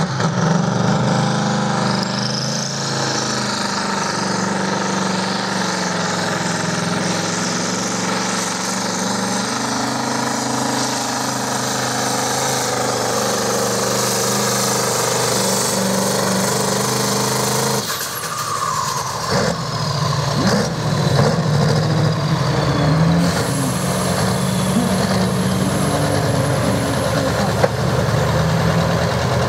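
Big engine of a pulling tractor or truck running steadily at a fairly constant pitch. The sound breaks off and changes about two-thirds of the way through, then an engine runs on, with a thin high whistle for a few seconds near the end.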